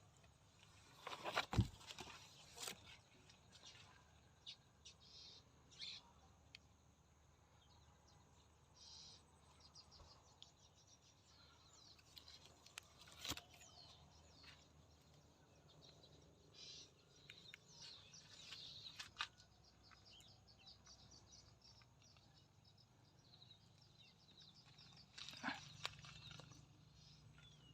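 Quiet outdoor ambience with faint bird chirps and a few scattered clicks and knocks, the loudest about a second and a half in.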